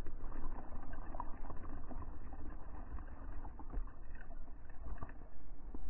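Water rushing and sloshing as it floods across the floor of a model ship's room, a steady muffled wash with a few faint ticks and splashes.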